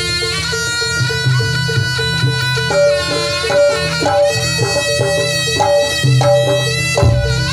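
Live jaranan accompaniment for barongan dance: a nasal, reedy shawm (the East Javanese slompret) plays a long-held, bending melody over a quick steady pitched percussion beat and low drum strokes.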